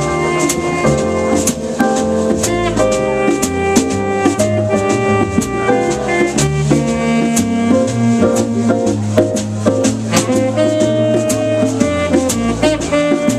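Jazz quartet playing live: drums keep time with steady cymbal strokes under held melodic notes and a moving line of low notes.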